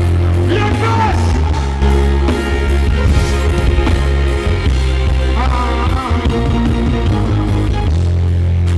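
Dancehall music with a heavy, steady bass line and a few short vocal phrases over it.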